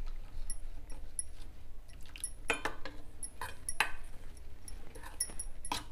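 A steel spoon clinking and scraping against a stainless steel bowl, mixing desiccated coconut powder with milk. The clinks come irregularly and are busiest in the middle.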